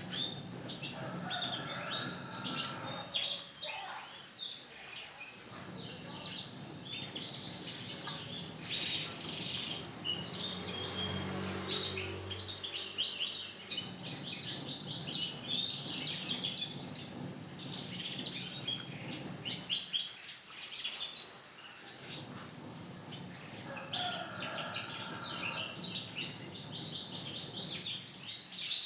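Yellow female canary in breeding condition calling: rapid high chirps and trills, nearly continuous, with short lulls about four seconds in and again about twenty seconds in, over a steady low hum.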